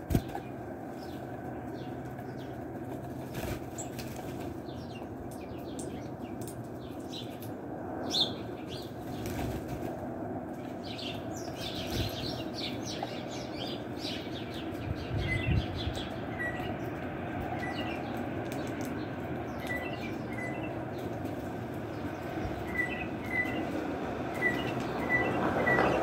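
Small songbirds at a seed-covered wooden ledge: wing flutters as birds fly in and off, scattered light clicks, and, from about halfway on, a run of short chirp notes repeated every second or so, over a steady low rushing background.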